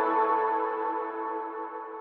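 Background music: soft, held ambient chords that fade out slowly.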